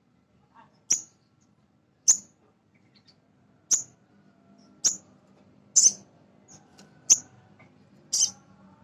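Male sogon (little spiderhunter) calling: seven short, sharp, high-pitched chips, one about every second or so, of the kind played as a lure to set other sogon calling.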